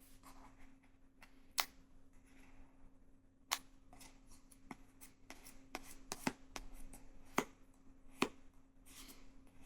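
Fingers handling and picking at a sealed cardboard smartphone box: scattered sharp clicks and taps with light scratching and rustling, over a steady low hum.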